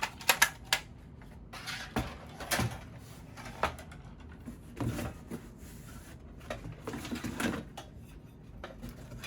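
Hard plastic and metal fire alarm parts being handled and set down: a run of sharp clicks and knocks with some rustling.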